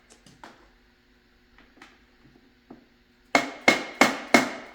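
Hammer driving an engine mounting bolt through a motorcycle frame and engine cases: a few faint knocks, then four sharp, ringing blows in quick succession near the end.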